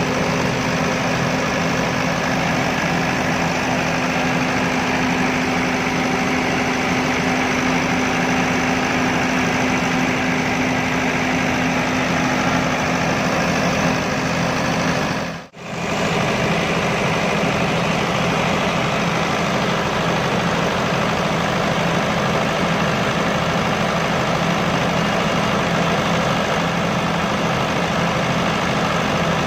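Diesel generator set engine running steadily. About halfway through the sound cuts out for a moment, then resumes at a slightly lower pitch.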